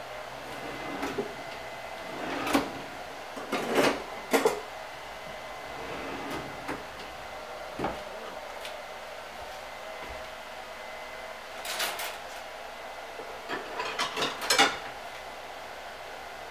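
Scattered knocks, clicks and short clattering runs of objects being handled and set down, over a steady background hiss. The loudest bunches come about a quarter of the way in and again near the end.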